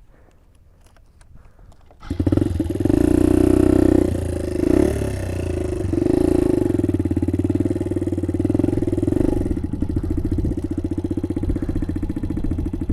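A small motorbike engine starts suddenly about two seconds in and keeps running steadily, its note shifting a little a few seconds after it catches.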